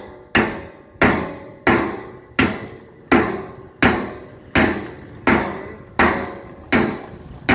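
Steady blows on a machete blade cutting through the top of a steel drum, about eleven strikes roughly 0.7 seconds apart, each with a ringing decay.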